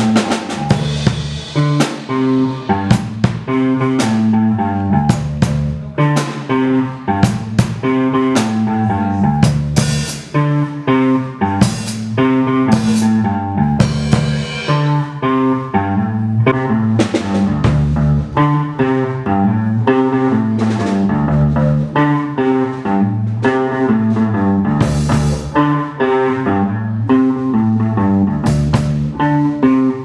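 A rock band playing an instrumental passage: a drum kit keeping a steady beat with snare hits and cymbal crashes over a moving electric bass line and guitar.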